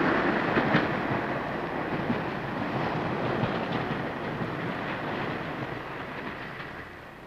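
A 1950s diesel multiple unit running away along the track, with a few wheel clicks over the rail joints, fading steadily as it draws off.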